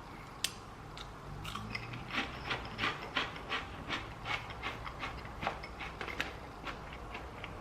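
Crunching of wasabi-and-seaweed flavoured crisps being chewed: a run of irregular crisp crunches, about three a second, starting about a second and a half in and thinning out near the end.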